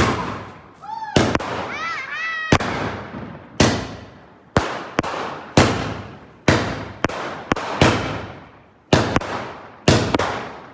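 Fireworks going off in quick succession: a sharp bang about once a second, each with a long fading, ringing tail.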